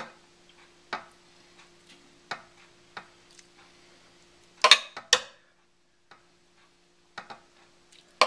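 Metal spoon clinking against a ceramic lasagna dish as sauce is spooned in: scattered light clicks, with two louder knocks about halfway through.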